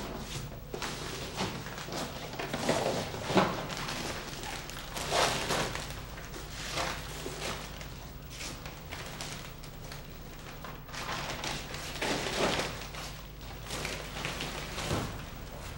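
Irregular rustling and soft thumps of a person handling clothing and a bag, over a steady low hum.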